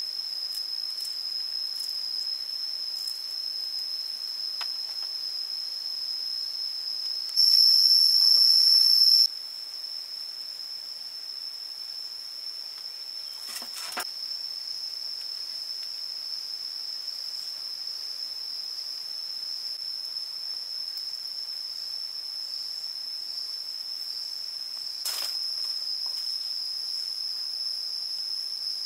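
Insects droning in one continuous high-pitched tone, swelling much louder for about two seconds some seven seconds in. A couple of faint knocks, one near the middle and one near the end.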